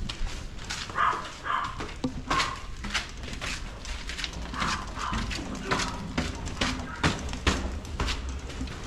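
Footsteps, about two a second, with a few short higher-pitched sounds among them.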